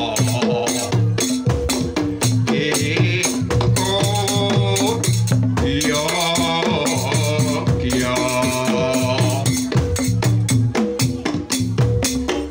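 Javanese gamelan playing a tayub piece: dense, rapid strokes on the bronze metallophones and drums over steady low gong and bonang tones. A sinden's voice enters in two wavering phrases, about three and a half seconds in and again about eight seconds in.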